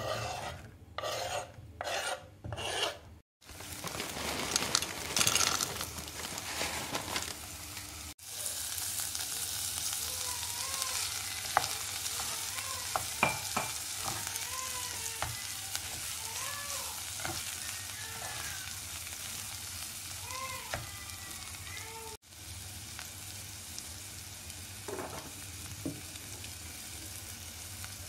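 Chopped carrots and corn tipped off a wooden board into a pot of onions sizzling in butter, a few quick loud bursts at first. Then rice frying in the butter, sizzling steadily while a spoon stirs it and scrapes and taps against the pot.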